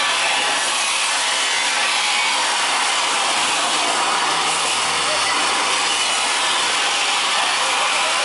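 Steady rushing noise with no distinct events, with faint distant voices mixed in.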